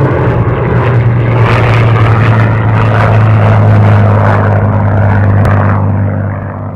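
Piston V-12 engines of a P-51D Mustang and a P-38J Lightning flying by in formation: a loud, steady, low propeller-engine drone. It swells to its loudest about four seconds in and fades away near the end.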